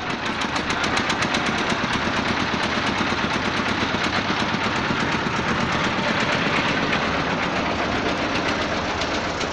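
A small boat engine chugging with rapid, even knocks. It grows louder over the first second and fades a little near the end.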